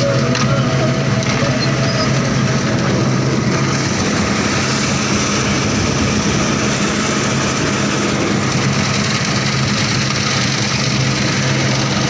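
Combine harvester running while harvesting wheat: a steady engine drone under the continuous noise of the threshing machinery and grain augers.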